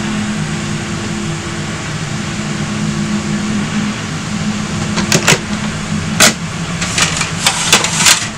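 A steady low machine hum with a hiss runs throughout. Over it come kitchen knocks and clatters, a few about five and six seconds in and a quicker run near the end as plates are taken down from a cupboard.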